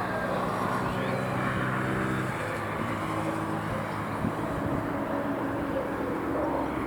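City street ambience: a steady traffic rumble with a motor vehicle's engine humming close by for the first couple of seconds, and a short bird chirp about a second in.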